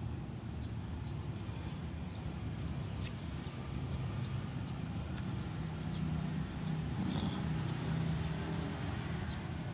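Low steady rumble of distant motor traffic, with a vehicle engine hum growing a little louder about halfway through.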